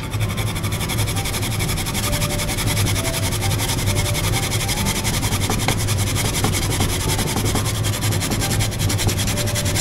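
Daikon radish being grated on a hand grater: rapid, even rasping strokes that keep on without a break.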